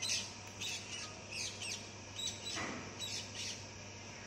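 Small birds chirping, short high chirps coming several times a second, over a faint steady low hum.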